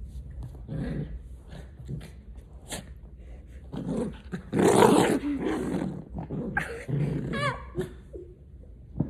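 Small white fluffy dog growling in rough bursts while play-wrestling, loudest about five seconds in.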